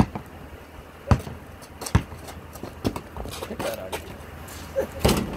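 Basketball bouncing on a hard court: single knocks about a second apart, then a quicker cluster of knocks near the end.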